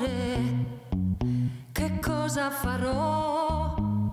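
Background music: a wavering melody over a bass line of short, repeated notes at a steady pace.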